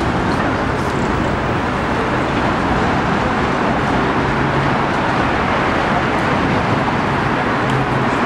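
Steady city street traffic noise at a tram stop, with a faint low hum that comes and goes.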